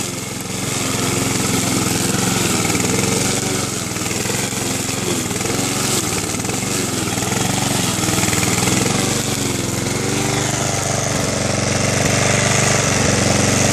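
Husqvarna WB53SE walk-behind rotary lawn mower running steadily while cutting long, overgrown grass. Its engine pitch wavers as the thick grass loads it.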